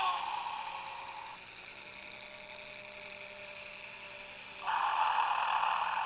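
Battery-powered Gemmy animated Mrs. Santa Claus figure snoring through its small speaker. A breath out falls away with a whistle at the start, a lull follows with a faint steady hum, then a loud snore comes in about three-quarters of the way through.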